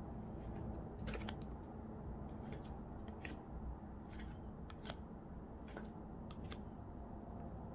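Tarot cards being shuffled and handled: light, irregular snaps and flicks of card stock, a few each second, over low background noise.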